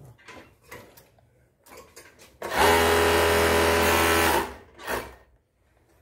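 Sun Special four-thread direct-drive overlock sewing fabric at high speed, set to 5,000 rpm: a loud, steady machine hum for about two seconds that starts and stops abruptly, then one brief short run about half a second later.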